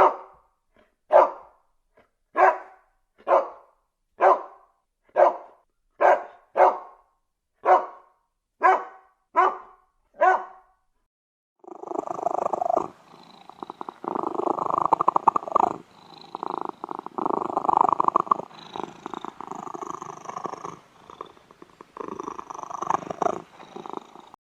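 An animal gives about a dozen short, evenly spaced bark-like calls. After a brief pause it makes a long, rough purring sound with a fast flutter.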